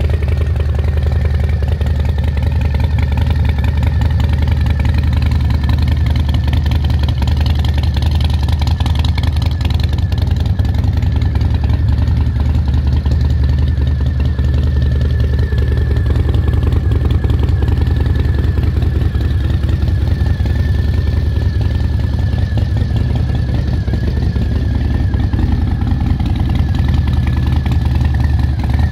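Harley-Davidson Fat Bob's Milwaukee-Eight V-twin idling steadily through aftermarket Vance & Hines exhaust pipes.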